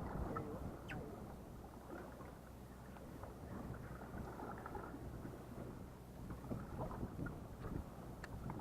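Background noise aboard a small fishing boat: a steady low hum with wind and water wash, and a few light knocks.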